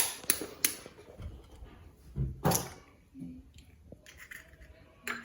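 Kitchen handling sounds: a few sharp clicks in the first second, then a dull knock a little after two seconds.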